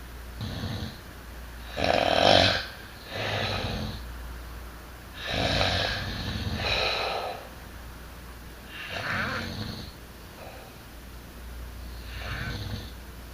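Snoring: a series of noisy breaths, about seven in all, some coming in pairs, at uneven intervals.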